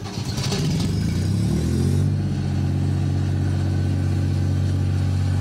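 Onboard diesel generator starting: the engine catches roughly, rises in speed, and settles into a steady run about two seconds in.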